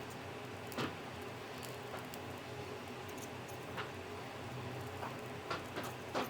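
A few small, sharp clicks and taps of hand tools against a circuit board, spaced irregularly, over a steady low background hum.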